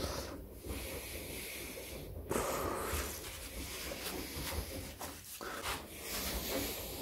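Soft rubbing and handling noises of hands and a cloth working on an engine crankcase, coming in stretches a couple of seconds long with short pauses and no sharp knocks.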